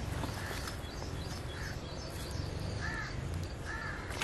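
A bird giving short, repeated calls, each a brief arched note, coming roughly a second apart and growing louder in the second half, over a steady low background rumble.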